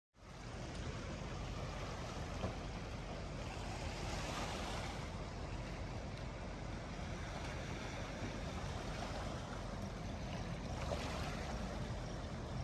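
Steady rushing noise of moving water and wind, with no clear separate events.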